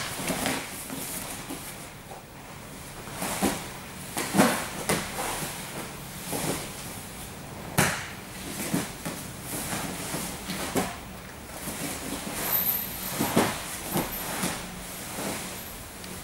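Irregular thuds and slaps of bodies, hands and feet landing on a padded grappling mat as two people in gis roll through a sweep, roughly one knock every second or so.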